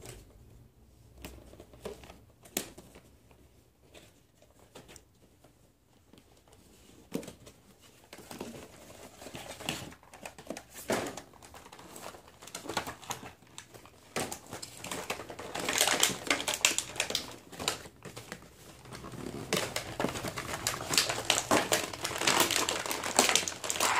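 Action-figure packaging being opened by hand: cardboard box and clear plastic tray rustling and crinkling. Scattered light clicks and rustles at first, turning to steady, busier crinkling of the plastic from about halfway through.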